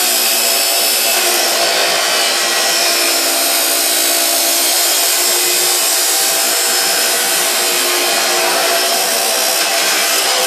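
DeWalt abrasive chop saw cutting through metal stock: a steady motor whine over the grinding hiss of the cut-off disc in the metal.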